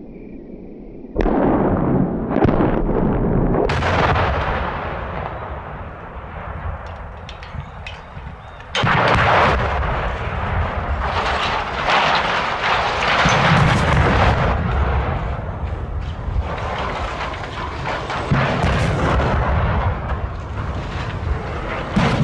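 Explosive cutting charges detonating on the legs of steel lattice radio towers: a sudden loud blast about a second in with more sharp cracks just after, and another blast at about nine seconds. Each is followed by several seconds of rumbling, crackling noise as the towers come down.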